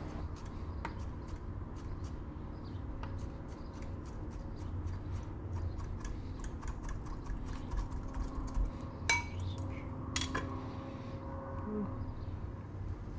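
A chef's knife mincing capers on a wooden cutting board: a run of light, irregular taps of the blade on the board, with two sharper clicks about nine and ten seconds in.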